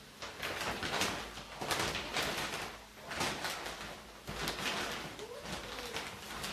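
A series of rasping, scraping strokes, each about half a second long, repeating irregularly about once a second.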